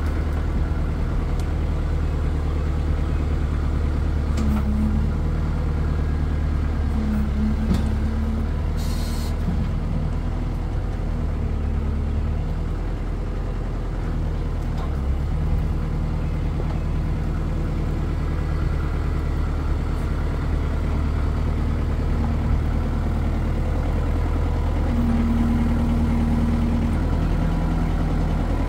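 Kubota L48 tractor-loader-backhoe's four-cylinder diesel engine running steadily while the front loader is worked. A higher tone comes in briefly a few times: around five and eight seconds in, and again near the end.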